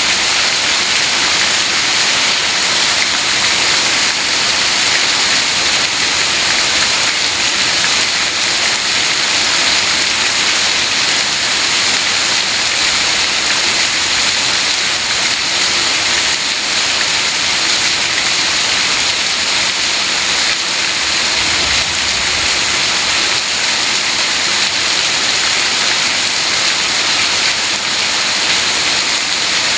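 Heavy rain pouring steadily, a dense, even hiss with no break or change.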